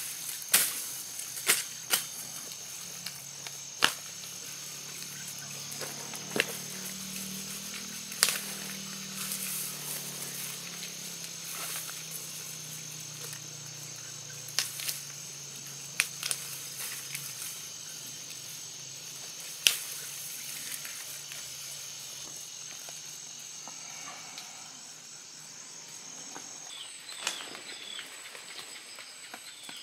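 Steady high-pitched insect chorus that drops out near the end, with scattered sharp snaps and rustles as lemongrass stalks are pulled and broken off by hand.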